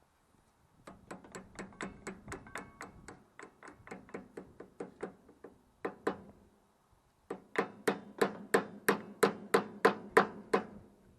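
Hammer striking the steel parts of a double-chain drive coupling in quick, even taps, about three a second, then after a short pause a louder run of taps.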